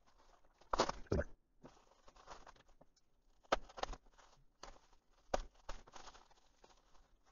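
Plastic mailer and bubble wrap rustling and crinkling in short, scattered bursts as a package is cut open and the bubble-wrapped contents are pulled out and handled.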